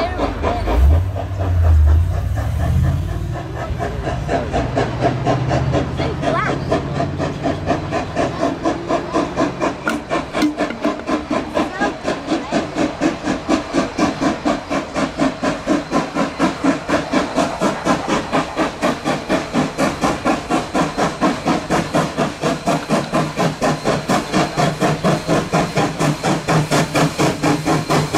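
Queensland Rail C17-class 4-8-2 steam locomotive working hard, its exhaust chuffing in a quick, even beat of about three to four a second. There is a low rumble in the first few seconds.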